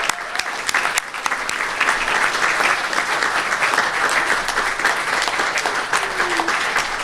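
An audience clapping in steady applause, a dense patter of many hands.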